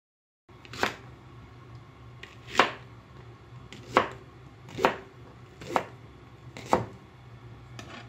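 Kitchen knife chopping a Japanese long green onion on a plastic cutting board: six separate cuts, roughly one a second, each a sharp knock of the blade on the board. A low steady hum sits behind them.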